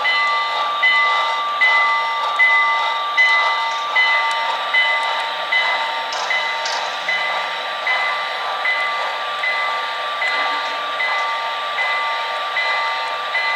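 Model passenger train rolling slowly past, its wheels clicking over rail joints about once every 0.8 seconds over a steady running hum.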